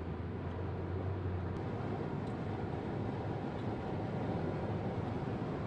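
Steady road noise heard inside a moving car at highway speed: tyre and engine noise, with a low hum that drops away about a second and a half in.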